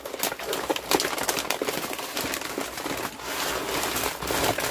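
Plastic packaging crinkling and rustling as hands open a wrapped package and pull out a pile of plastic-bagged scrapbooking supplies.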